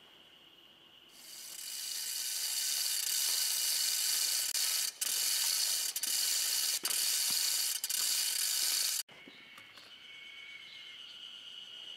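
Chain block being hauled on to hoist a tree root: fast, continuous rattling and clicking of the hand chain and ratchet pawl. It starts about a second in, breaks off briefly four times between pulls, and stops abruptly near the end.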